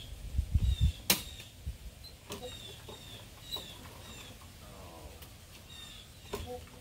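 Recoil starter cord of a Craftsman mower's Briggs & Stratton 7.5 engine being pulled, the engine turning over without catching: it has no compression. Birds chirp in the background.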